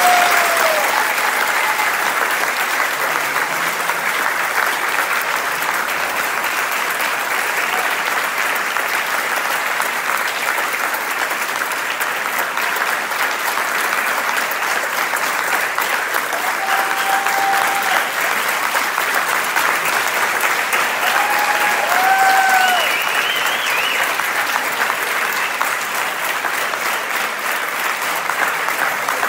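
Audience applauding, a dense, steady clapping of many hands that keeps going for about half a minute. A few short calls from the crowd rise above it right at the start and again about two-thirds of the way through.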